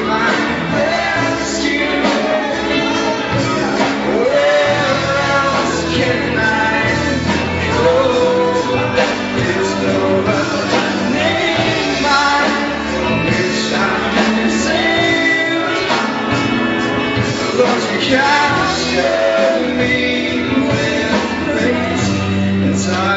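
Worship music: a band playing a slow song with singing over it.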